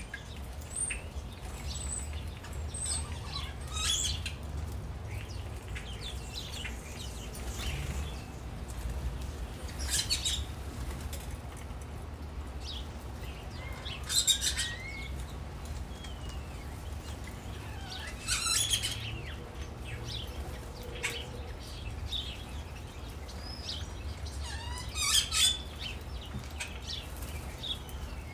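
Many small birds chirping, with several short flurries of fluttering wings from bathing birds, over a steady low background rumble.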